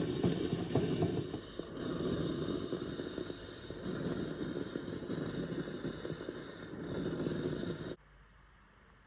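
Sage espresso machine running with a coarse, rattly mechanical noise that cuts off abruptly about eight seconds in.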